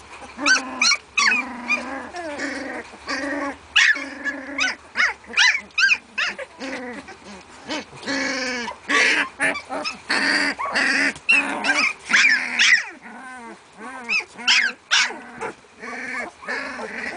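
A litter of 16-day-old puppies whining and yelping, with many short, high cries that rise and fall and overlap one another throughout.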